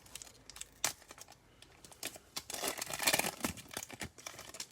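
Crinkling of a Prizm basketball card pack's wrapper being opened, with cards being handled and small clicks. The crinkling is densest about halfway through.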